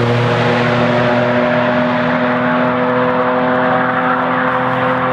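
Porsche 962's turbocharged flat-six racing engine running at a steady pitch, dipping slightly at the start and then holding level.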